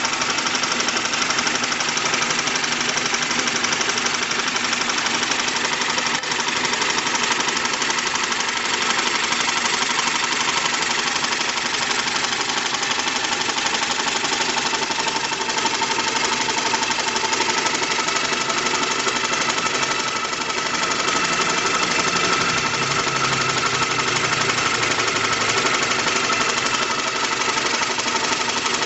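Homemade rotary steam engine running steadily as an air blower, a fast even clatter with a hiss.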